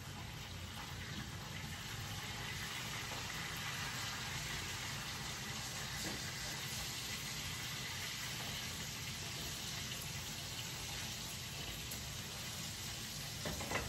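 Burgers frying in a pan on the stove: a steady sizzle that holds at an even level.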